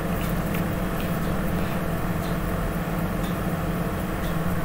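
A steady low mechanical hum with a few faint, irregular light clicks as a bolt is turned out by hand.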